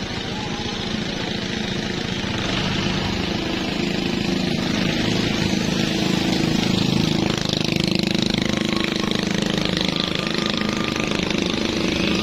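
Motorcycle engine running with a rapid, even pulse, getting a little louder over the first few seconds.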